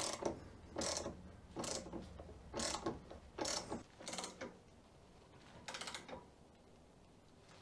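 A ratchet wrench cranks the threaded spindle of a bearing press tool to press a hub flange into a new wheel bearing, in short clicking strokes about once a second. The clicking stops about six seconds in; the flange is not going in at all.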